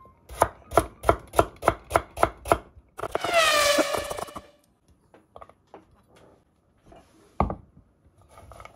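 Chef's knife slicing a carrot on a wooden cutting board: about eight quick, even chops, roughly three a second. About three seconds in, a loud rushing sound with tones falling in pitch takes over for over a second. After that come a few faint taps and a single knock.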